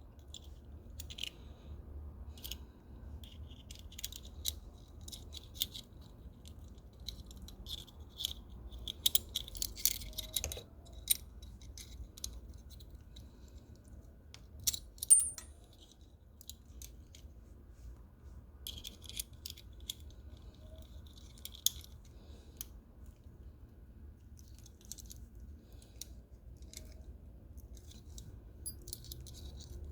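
Small metal clicks and clinks of a multitool's parts being handled and fitted back together as its lock mechanism is set into place, with one sharper click about halfway through.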